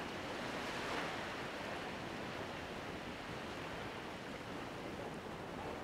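Steady outdoor wash of gentle sea water and breeze: an even hiss with no distinct events.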